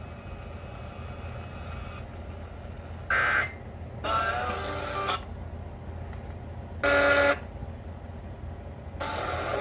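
Four short electronic tone bursts of uneven length and spacing over a steady low hum.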